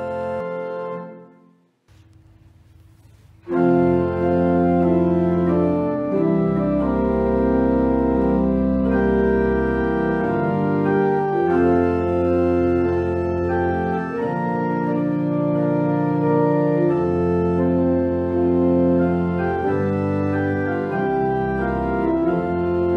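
Organ music: a held chord dies away about a second and a half in, there is a brief hush, and then a new passage begins about three and a half seconds in, with full sustained chords that change every second or two.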